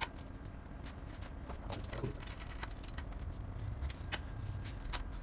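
Scattered small metal clicks and light scrapes as a children's bicycle front wheel is fitted into the fork and its axle nuts are turned by hand, with the sharpest click right at the start.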